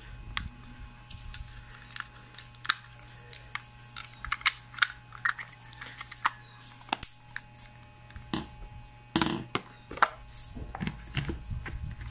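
Scattered plastic clicks, taps and rattles of a handheld GPS unit being handled: AA batteries pulled from its compartment and the battery cover fitted back, with a louder clatter about nine seconds in. A steady low hum runs underneath.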